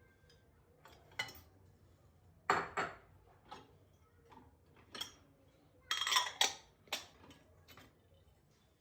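Dishes and cutlery clinking and knocking as they are handled and set down. The sounds come as a series of separate strikes, loudest about two and a half seconds in and around six seconds in.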